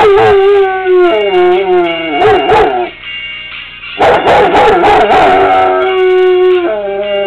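German Shepherd howling along to a pop song: two long howls, the first tailing off with a falling pitch about three seconds in, the second starting a second later and sliding down again near the end.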